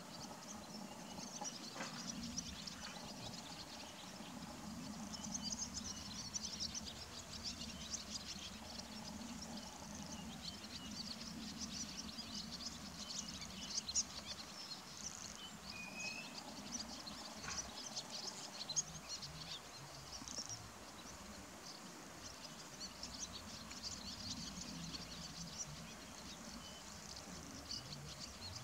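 Faint outdoor ambience of small birds chirping, with many short high chirps throughout over a low steady hum.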